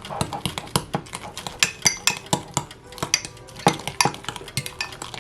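A spoon clinking and scraping against a small bowl while stirring thick batter, in quick, slightly uneven clicks about four a second.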